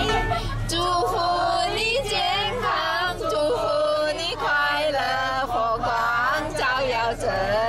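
A woman singing a melodic song, her held notes wavering with vibrato, over faint instrumental backing.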